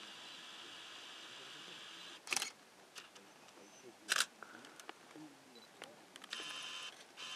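Camera motor whirring steadily for about two seconds, then two sharp clicks a couple of seconds apart, and the whirring again near the end.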